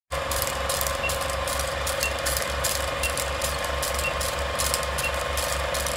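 Film projector clatter, as in an old-film countdown leader: a steady mechanical rattle with a fast even rhythm, starting abruptly, with a faint short beep about once a second.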